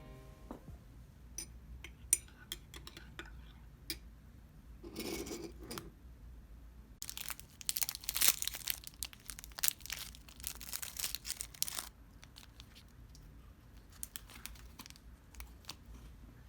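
Crinkling and tearing sounds with scattered light clicks, densest about seven to twelve seconds in.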